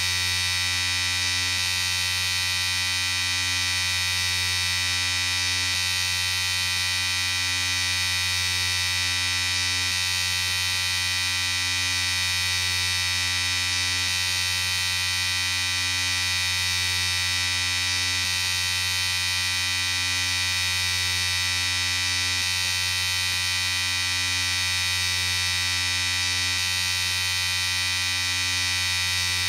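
Electric shaver running continuously, a steady buzz with a high-pitched whine on top and a faint slow wavering in its lower tone.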